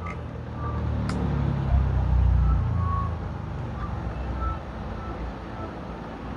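Low engine rumble of a passing vehicle, swelling about half a second in and fading away by the middle, with a single sharp click about a second in.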